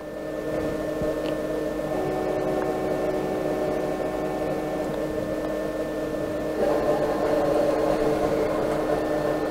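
Stepper motors of a 6040 CNC router jogging the spindle head across the bed: a steady electric whine over a constant machine hum. Its tones change about two seconds in, and it grows louder from about six and a half seconds as the head moves across to the tool setter.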